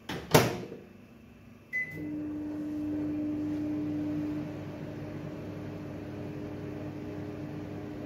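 Samsung microwave oven door shut with a sharp latch click, then one short beep as it is started. The oven begins running with a steady hum about two seconds in, slightly louder for the first couple of seconds.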